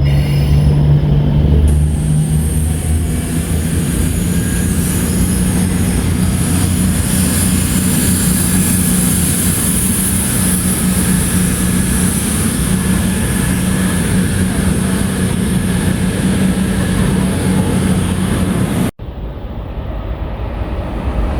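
Train running through the station: a loud, steady low rumble with a high rushing hiss over it. The sound drops out for a moment about nineteen seconds in, then carries on.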